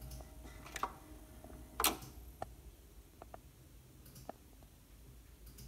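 Stylus riding the run-out groove of a spinning vinyl single after the music has ended: a faint low hum with scattered clicks and pops, the loudest about two seconds in.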